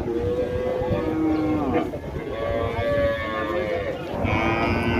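Cattle mooing: several long, drawn-out moos one after another, two of them overlapping in the first couple of seconds and a lower one near the end.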